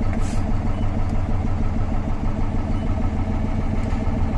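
Liebherr LTM 1055-3.1 mobile crane's diesel engine idling steadily at about 750 rpm, heard from inside the cab, while the engine builds up pressure in the air system.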